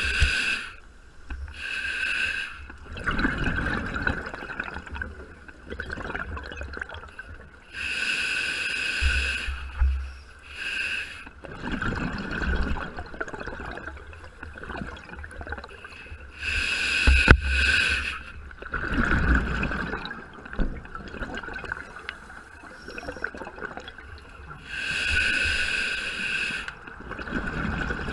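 Underwater scuba breathing through a regulator: each inhalation a hissing draw, each exhalation a burst of bubbling and gurgling, repeating about every seven to eight seconds.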